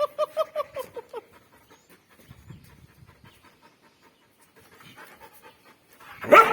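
A dog panting quickly, with short voiced pants, about seven a second, for the first second, then fainter. A louder pitched sound, a dog's or a person's voice, starts just before the end.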